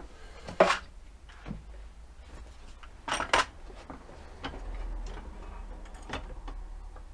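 A few separate knocks and clinks, two close together about three seconds in, as a plastic compartment box of copper washers is reached for and picked up off a workbench.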